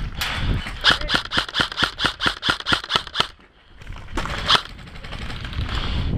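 Airsoft gun firing a rapid string of about a dozen shots, roughly six a second, with another short burst a moment later.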